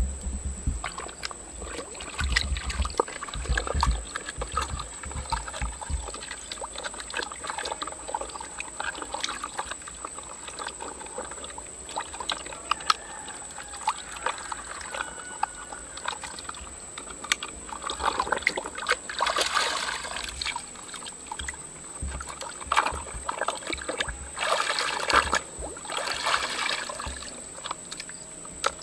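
A muddy plastic toy dump truck being washed by hand in a bucket of water: water sloshing and splashing as it is scrubbed, with bouts of louder splashing in the second half, and water trickling off the truck as it is lifted out near the end.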